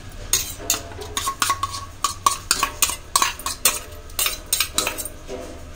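Steel spoon scraping and clinking against steel bowls as ginger-garlic paste is scooped out and dropped in: a quick run of sharp metal taps, about three or four a second, some ringing briefly.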